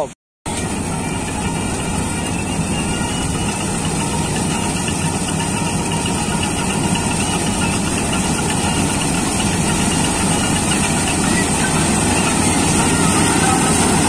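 Jaswant 950 combine harvester running as it cuts wheat: a steady drone of engine and threshing machinery with a thin high whine. It grows slightly louder toward the end.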